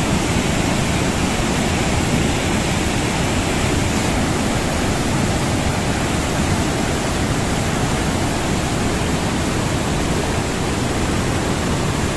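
Floodwater rushing through an open sluice gate of a river barrage: a steady, loud rush with no let-up. The gates are releasing a huge flood discharge.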